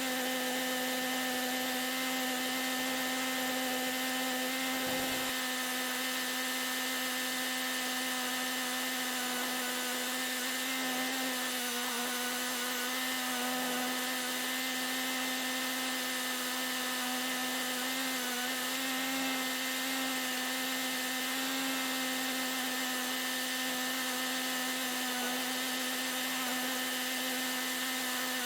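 Kubota tractor engine running at a constant steady speed, an even droning hum with a strong low tone and a ladder of overtones, as it pulls a dethatcher across the lawn.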